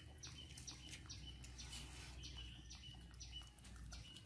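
Faint bird chirping: short high chirps repeated about two to three times a second, with light clicks between them.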